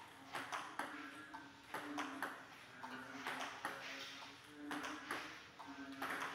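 Table tennis balls clicking off rubber paddles and bouncing on the table, in a quick, steady rhythm of about three hits a second, as a coach feeds balls in a multiball drill.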